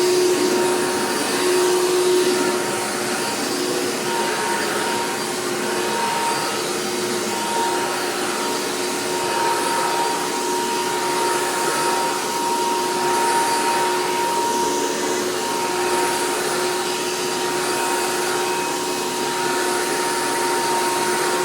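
Hoover PowerMax II vacuum cleaner running steadily: a constant motor whine over the rush of air.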